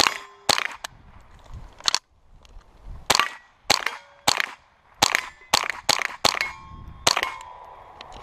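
.22 rimfire gun firing a string of about a dozen shots at an uneven pace, some quick pairs and some longer gaps, with steel plate targets ringing briefly after hits.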